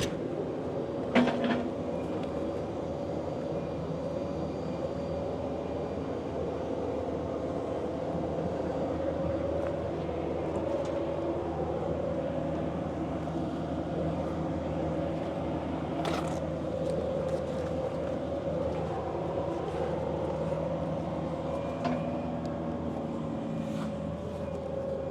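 Diesel engine of a skid steer running steadily at an even speed, with a few sharp metallic knocks near the start and about 16 seconds in.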